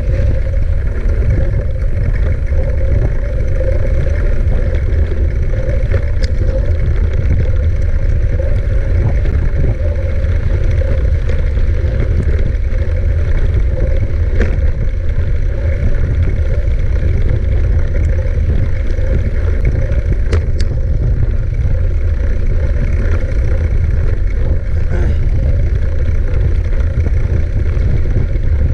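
Steady rumble of wind on the microphone and tyre noise from a mountain bike being ridden, with a few sharp clicks from the bike.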